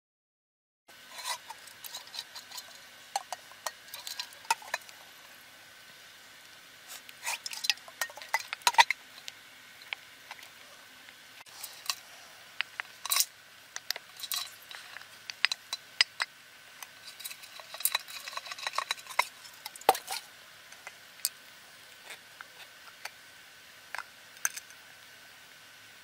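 Wooden spoon stirring stiff biscuit dough in an enamel mug, starting about a second in, with irregular clinks and scrapes against the mug.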